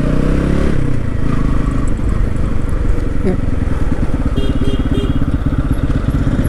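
KTM Duke 250's single-cylinder engine and exhaust, its revs dropping as the bike slows in the first second, then running steadily at low revs with a rapid pulsing exhaust note that the rider finds oddly different. Three short beeps about four and a half seconds in.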